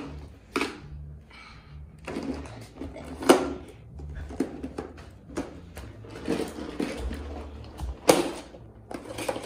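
Irregular clattering and knocks as a plastic Hot Wheels storage case full of die-cast toy cars is lifted and carried, with two sharper knocks about three seconds and about eight seconds in.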